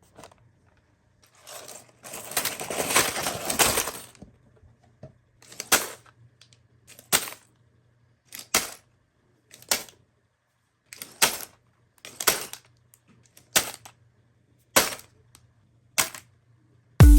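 Plastic LEGO pieces being handled: a couple of seconds of crinkly plastic rustling, then about nine sharp single clicks, roughly one every second or so.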